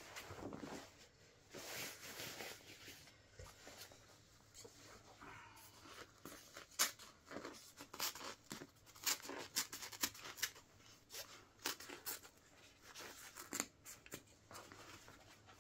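Fabric of a Wellensteyn Schneezauber winter jacket being cut and torn apart: a few seconds of tearing and rustling, then a quick run of sharp snips and clicks.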